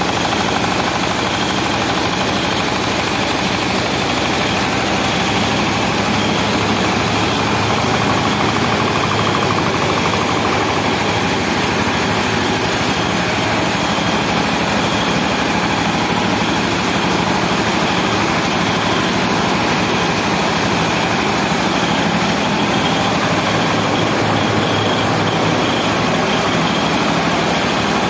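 Belt-driven rice milling machinery running steadily: a loud, constant mechanical drone.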